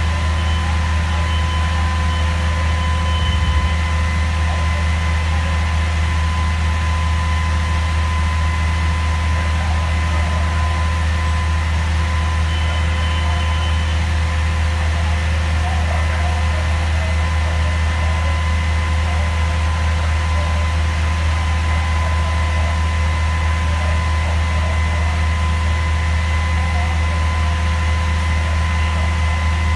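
Fire engine's engine running steadily: a constant low drone with a faint steady whine above it.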